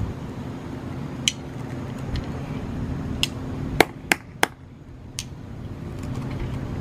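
Sharp clicks and knocks from hands straining at the stuck metal lid of a glass olive jar, about six of them, the loudest three close together near the middle. A steady low hum runs underneath.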